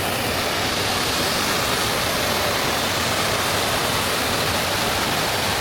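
Stock Ghyll Force waterfall rushing: a steady, dense hiss of falling water.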